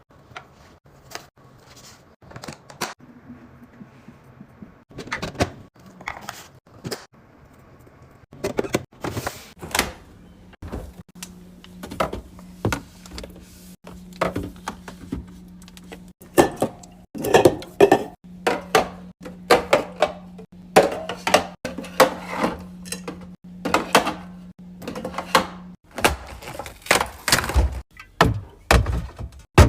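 Food containers and packaging being handled and set down while a fridge is restocked: a steady run of clicks, taps and thunks, louder in the second half. A low steady hum runs through the middle.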